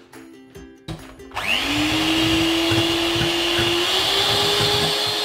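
Background music, then about a second and a half in an electric hand mixer starts whipping cream in a stainless steel bowl: its motor whine rises as it spins up and then runs steadily, stepping up a little in pitch near the end.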